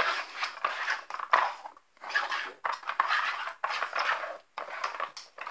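Plastic tiers of a Nina Ottosson Dog Tornado treat puzzle clattering and clacking irregularly as they are spun and knocked about while a treat is hunted for.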